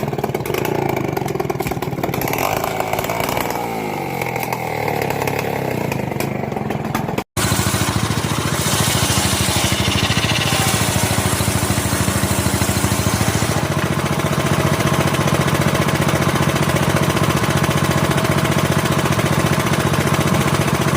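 Old Stihl two-stroke chainsaw engine running. Its speed falls in the first few seconds, the sound breaks off for an instant about seven seconds in, and then it runs steadily at speed, with extra hiss for a few seconds after the break.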